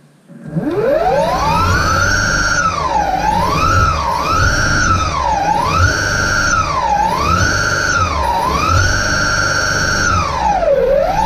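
Two Flipsky 6374 190KV brushless hub-drive motors of a DIY electric skateboard, spun up unloaded with the wheels off the ground on a first test after programming the VESC. The whine climbs steeply from low to high in about the first second and holds at top speed. It then dips and climbs again about seven times as the throttle is eased off and reapplied, over a low rumble from the drive.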